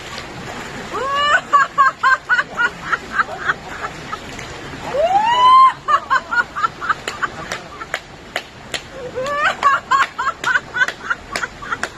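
Women laughing loudly in three bouts of quick, high-pitched "ha-ha-ha" bursts, each opening with a rising whoop, with one long rising "whoo" in the middle. Rushing stream water runs underneath.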